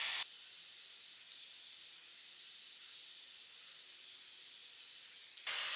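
Butane soldering iron's hot-air tip hissing steadily as it shrinks heat-shrink tubing over a wire splice; the hiss stops shortly before the end.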